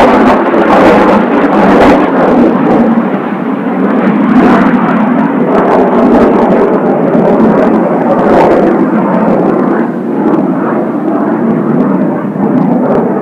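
Jet noise from a formation of Kawasaki T-4 jet trainers flying over, a loud, steady roar from their turbofan engines that eases slightly twice before building again.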